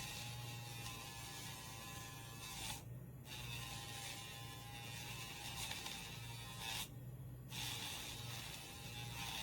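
Casfuy electric pet nail grinder whirring with a steady hum and a high whine as it grinds a dog's nails, the whine and hiss cutting out briefly twice, about three and seven seconds in.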